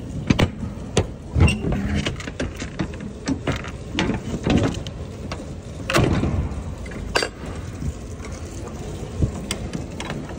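Steel lock-rod handles on a semi-trailer's rear swing doors being unlatched by hand: a run of metal clicks, clanks and rattles, with louder knocks about one and a half, four and a half and six seconds in.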